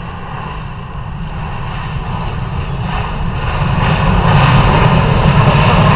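Boeing 787 jet airliner on landing approach, its engine noise with a high whine growing steadily louder as it comes nearer.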